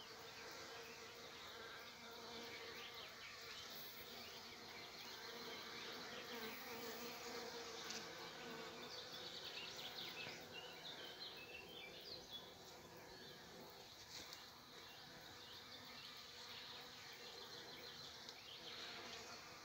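Bees buzzing steadily as they work the flowers of blooming kiwi vines for pollen, with a few bird chirps about halfway through.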